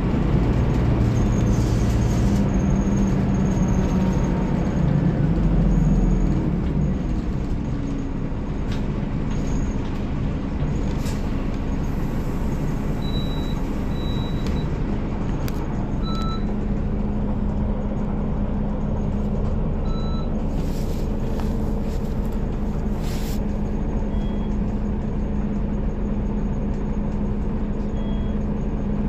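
Scania K360IB bus's DC13 straight-six diesel engine running, louder for the first six seconds, then dropping to a lower, steady note. A few brief hisses break in during the second half.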